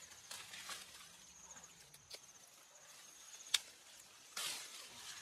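An insect trilling steadily in a high, pulsing buzz that fades in and out. Over it come a few sharp snaps, the loudest about three and a half seconds in, and brief rustling near the start and about four seconds in.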